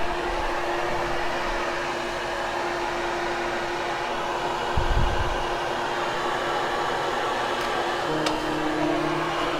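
Hoover Hushtone upright vacuum cleaner running steadily over carpet, its motor giving a constant hum with rushing air. There is a brief low thump about five seconds in, and the hum shifts slightly after a click near the end.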